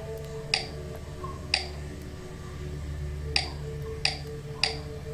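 Five sharp clicks at uneven spacing, from about half a second to nearly two seconds apart, as handwritten strokes are put down on a digital whiteboard. A low steady hum runs beneath them.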